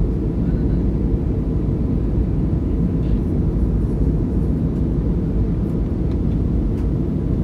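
Steady low cabin rumble of an Airbus A321 in flight, its engines and airflow heard from inside the cabin at a window seat over the wing.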